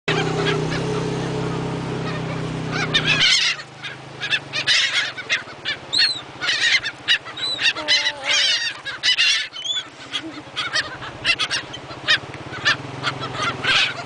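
A flock of laughing gulls calling, many short, high, overlapping cries as they compete for thrown food. For about the first three seconds a steady low hum runs under the calls, then cuts off suddenly.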